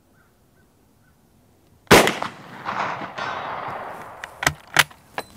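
A single shot from a Mauser Model 71/84 11mm service rifle about two seconds in, followed by a long fading echo. Near the end come a few sharp metallic clicks as the rifle's bolt is worked.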